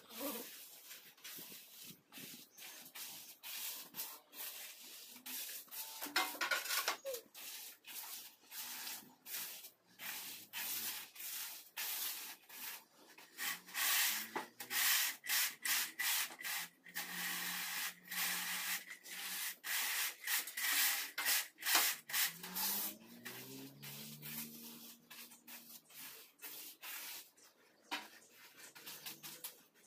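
Trowel and straightedge scraping over a wet sand-and-cement floor screed: a long run of rasping strokes as the mortar is spread and levelled, thickest in the middle stretch.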